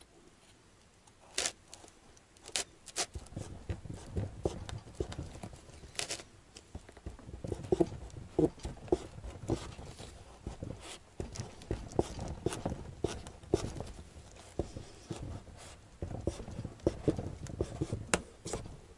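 Knife cutting around the top of a whole pumpkin to take off a lid: irregular sharp clicks and short knocks, several a second, as the blade works through the hard rind.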